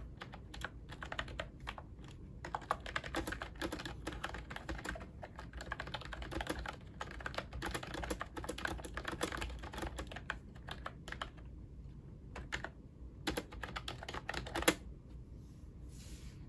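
Fast typing on a pink Ajazz wireless keyboard with round typewriter-style keycaps: a quick, steady stream of key clicks. After about eleven seconds it thins to a few separate keystrokes, the last and loudest one about a second before the typing stops.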